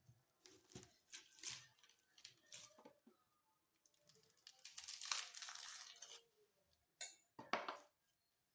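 Faint kitchen handling sounds: scattered light knocks and clicks of utensils and ingredients on a worktop, with a longer rustling scrape about five seconds in and two sharper knocks near the end.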